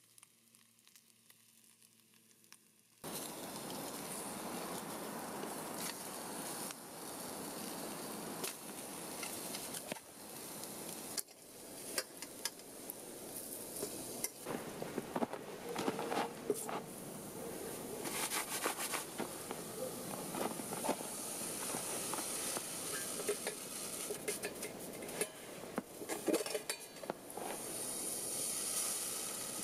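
Canadian bacon sizzling in a steel frying pan over a crackling campfire, starting about three seconds in, with scattered metal clinks and knocks of a cooking pot and pan being handled.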